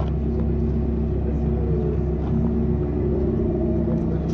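Ford Fiesta ST150's 2.0-litre Duratec HE four-cylinder running steadily with no change in engine speed, through a nearly straight-through exhaust that gives it a raspy note.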